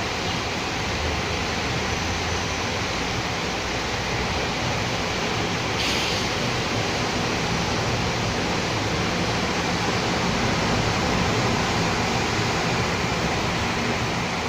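Steady rain falling on a city street, an even hiss, with a brief sharper tick about six seconds in and a slight swell in level near the end.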